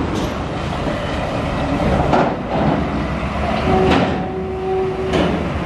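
Diesel cargo truck engine running as the truck drives off a ferry ramp across steel deck plates, with three loud metal clanks about two, four and five seconds in as the wheels cross the plates. A steady tone is held for about a second and a half near the end.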